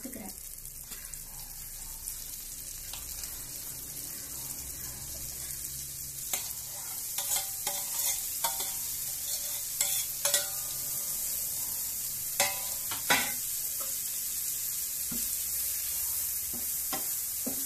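Butter sizzling in a nonstick frying pan as chopped banana flower is fried in it. Between about six and thirteen seconds come a series of sharp clicks and scrapes as a spoon pushes the chopped flower off a steel plate into the pan. After that it is stirred with a wooden spatula while it keeps sizzling.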